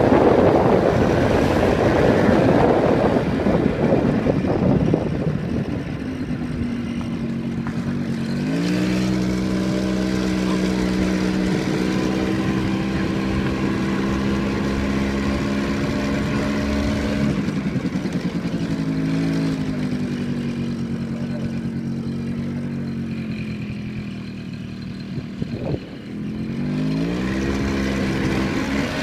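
Vehicle engine heard from on board while driving. A loud rush of wind and road noise fills the first few seconds, then the engine settles into a steady hum that drops in pitch partway through, dips briefly and rises again as it speeds up near the end.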